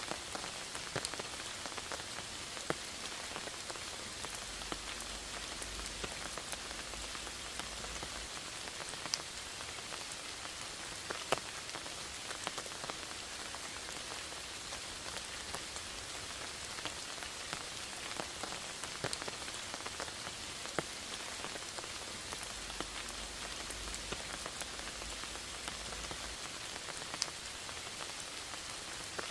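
Steady rain: an even hiss of falling rain with frequent sharp taps of single drops scattered through it.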